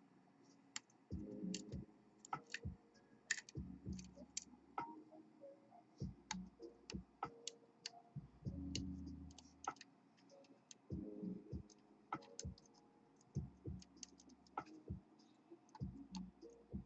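Faint, irregular small metallic clicks of a hook pick working the pins of a pin-tumbler lock under tension, with dull handling knocks now and then. The picking ends in what the picker takes for an overset pin.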